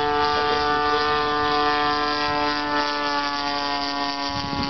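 DLE 20cc single-cylinder two-stroke gasoline engine of a Seagull Zero 60 RC plane in flight, a steady buzzing drone whose pitch sinks slowly.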